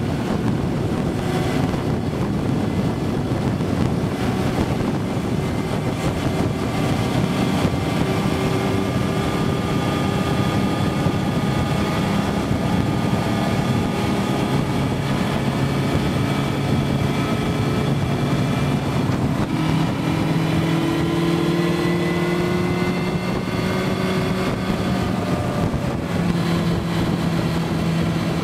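Motorcycle engine running under way, heard from the rider's seat, its pitch drifting up and down with the throttle and changing about two-thirds of the way through, over steady wind rush on the microphone.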